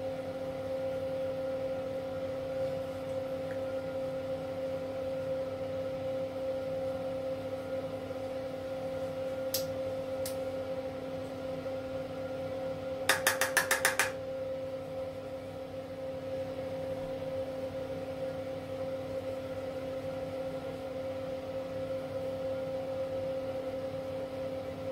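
A steady machine-like hum holding several even tones, with a rapid run of about eight sharp clicks lasting about a second roughly halfway through.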